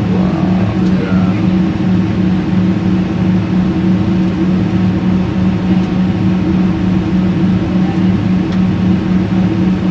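Steady cabin drone of a jet airliner in flight, with a constant low hum under it.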